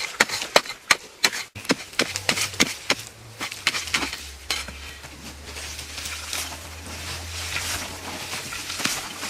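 Rapid repeated strikes of a hand tool, about three a second, giving way after a few seconds to scraping and rubbing.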